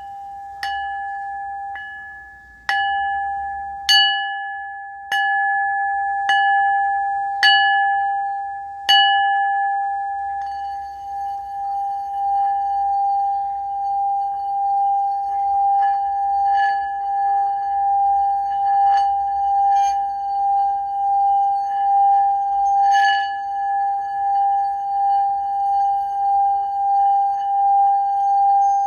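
Singing bowl struck about eight times, a little over a second apart, each strike ringing on. Then the bowl sings a continuous tone that swells and fades about once a second, as when the rim is rubbed with a mallet.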